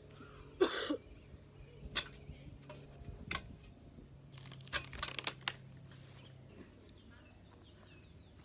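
Knocks and clatters of a garden chair and a large board being handled and set down on grass, with a loud clatter about half a second in, single knocks around two and three seconds, and a cluster of clatters around five seconds.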